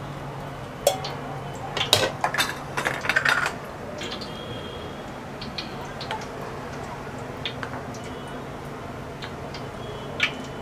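Metal kitchen utensils clinking and clattering against steel cookware for a couple of seconds, then a few light ticks over a low steady hum.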